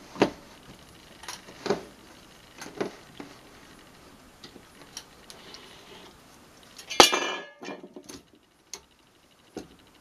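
1949 Remington portable typewriter being handled and moved on a wooden table: scattered clicks and knocks of its metal parts, then a loud clunk about seven seconds in that rings briefly.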